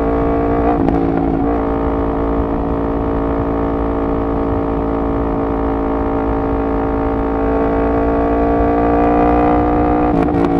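Yamaha MT-10's crossplane inline-four with a decat exhaust, running steadily under throttle. Its pitch climbs slowly over the second half as the bike gains speed, with a brief dip near the end.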